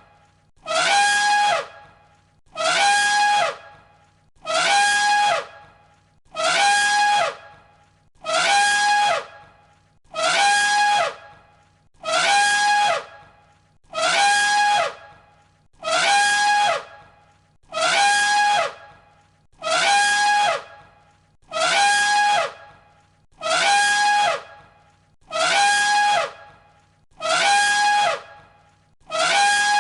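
Elephant trumpeting: the same short recorded call looped over and over, each blast about a second long and repeating roughly every two seconds. Each is a held pitched note with a falling sweep under it.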